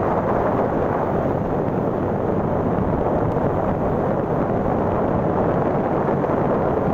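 Steady wind rushing over the microphone of a moving motor scooter, with the scooter's engine and road noise underneath.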